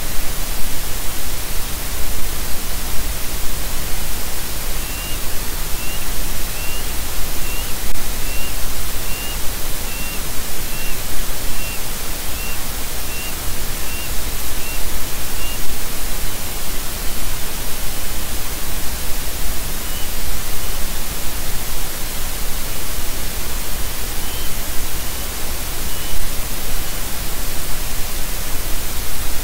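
Steady loud static hiss from a nest-camera microphone feed. A faint run of short rising bird chirps, about two a second, sounds from about five seconds in for some ten seconds, with a few more later.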